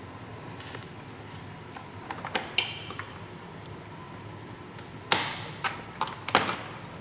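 Hard plastic clicks and snaps as the motorcycle's fairing trim and push-pin fasteners are worked loose by hand. A few light clicks come first, then two louder snaps about five and six seconds in.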